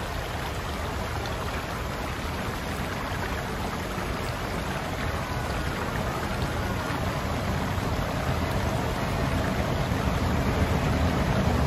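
Steady rush of a shallow creek flowing over rocks, with a steam train coming closer and growing slowly louder under it.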